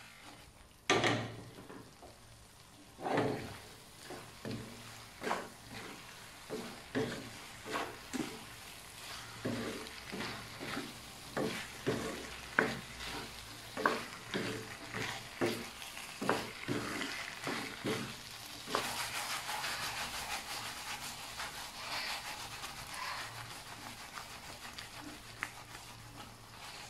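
Wooden spatula stirring and tossing chicken and bell pepper stir fry in a non-stick wok over sizzling, with sharp scrapes and knocks against the pan about once or twice a second. About two-thirds of the way through the stirring stops and the sizzling goes on steadily.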